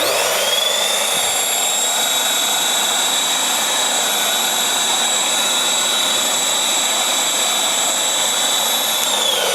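Bissell 3-in-1 stick vacuum motor switched on, its whine rising quickly to a steady high pitch over a rush of air, then switched off and winding down, the whine falling, near the end. It runs with almost no suction, typical of its badly plugged filter.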